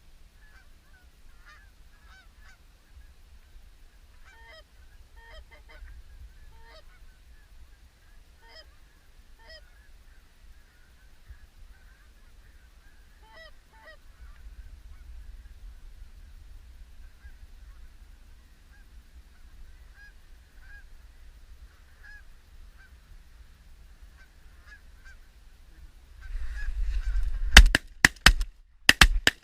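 Canada geese honking repeatedly, then a rapid volley of shotgun shots near the end, several in quick succession from different guns.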